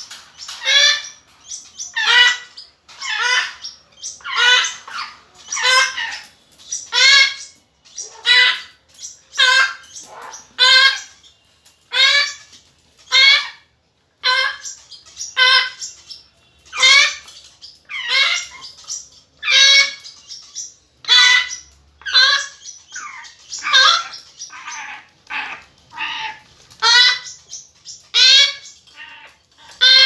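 Young hand-tame African grey parrots calling over and over, about one short call a second, with some calls coming closer together.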